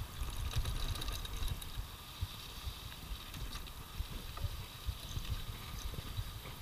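Mountain bike rolling fast down a dirt trail: wind buffeting the on-bike camera microphone, with tyre noise on the dirt and scattered rattling clicks from the bike over rough ground.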